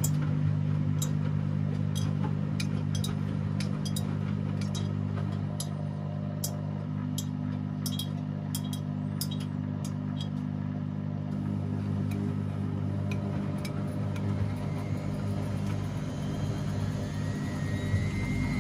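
Front-loading washing machine running: a steady motor hum with irregular light clicks from the tumbling load during the first half or so. Near the end a rising motor whine begins as the drum speeds up.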